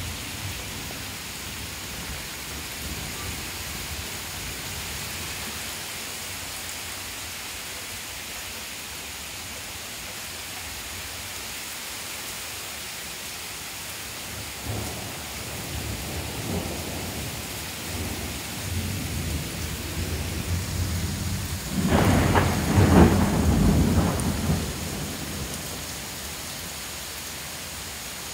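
Heavy rain pouring steadily in a thunderstorm. Thunder rumbles in from about halfway, and a loud peal of thunder comes about three-quarters of the way through, lasting a few seconds before it fades back to the rain.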